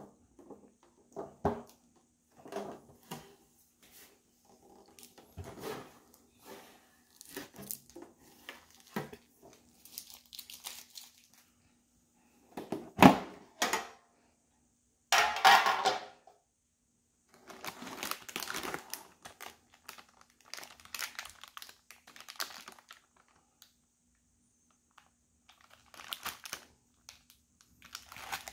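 A metal egg-roll tin being handled and opened: scattered knocks and scrapes, with one loud sharp knock of the tin or its lid about halfway through, then foil-wrapped packs crinkling as they are handled and lifted out.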